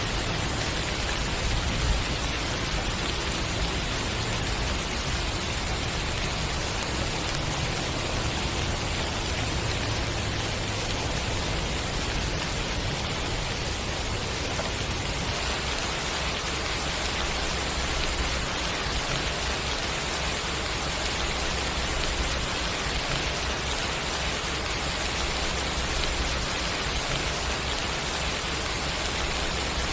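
Steady rain falling, heard as an even, unbroken hiss.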